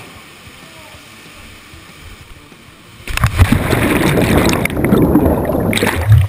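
Water on a helmet-mounted camera as the canyoner plunges into a canyon pool. A steady stream runs in the background, then about three seconds in a sudden loud rush of churning water starts as the camera goes under. It ends in a thump near the end.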